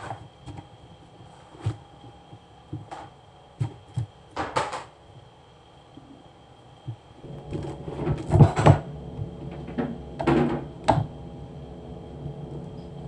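Kitchen knife cutting through a watermelon, the blade knocking on the board or tray in scattered strokes, the loudest a little over eight and ten seconds in. About seven seconds in a steady machine hum starts and keeps going underneath.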